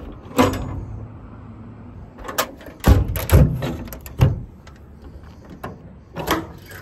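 Metal compartment doors and latches on a truck's utility service body being worked: a series of clicks, clunks and slams, the loudest a pair of heavy bangs about three seconds in.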